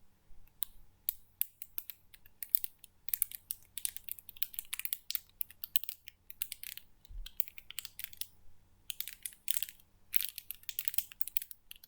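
Plastic fidget toy being worked close to the microphone, giving dense runs of small clicks and crackles. They pause for a couple of seconds in the middle, then start again.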